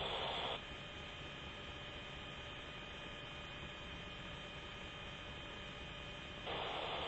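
Steady electrical hum and hiss of a helicopter's radio and intercom audio channel, with several faint steady tones. Two short bursts of static, one at the start and one near the end, as a radio is keyed without speech.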